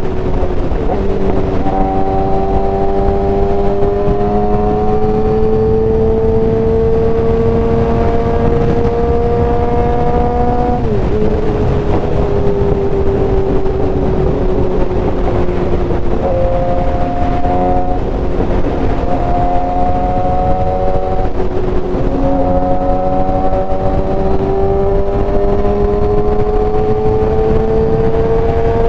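A Suzuki GSX-R 750's inline-four engine running at highway cruising speed under a steady rush of wind. Its pitch rises and falls slowly as the throttle changes, with a sharp dip about eleven seconds in.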